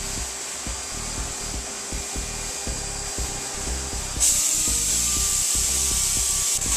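Air spray gun hissing as it sprays primer onto a tub surround, cut off at first and starting again about four seconds in.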